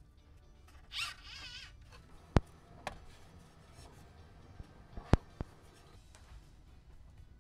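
Scattered sharp clicks and taps over a faint rustling, the loudest about two and a half and five seconds in, with a short warbling tone about a second in.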